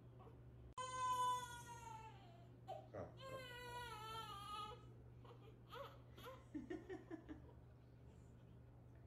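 Newborn baby crying: two long wails, the first falling in pitch, followed by a few short whimpers.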